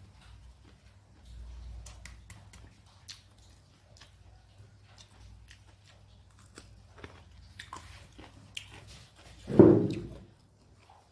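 Close-up mouth sounds of someone chewing a mouthful of rice with okra and bitter gourd dry fry, made up of many small wet clicks. About two-thirds of the way through comes a short, much louder low sound, like a gulp or throat noise.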